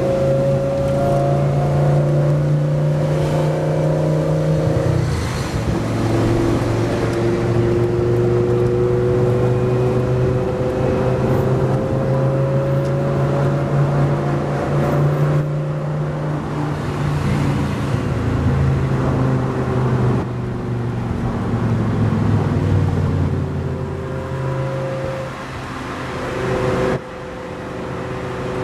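Lamborghini Gallardo Spyder's V10 engine through a Larini aftermarket exhaust, heard from inside the cabin while driving in traffic. The engine note climbs in pitch, drops at an upshift about five seconds in, then climbs slowly again under light throttle; near the end the sound drops suddenly.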